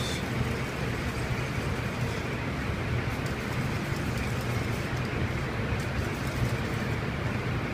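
Steady low rumble of a commercial kitchen's ventilation hood fan running, even and unbroken.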